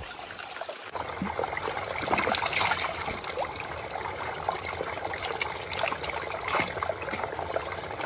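Spring water trickling and splashing as a small stream, welling from under a rock; it gets a little louder about a second in.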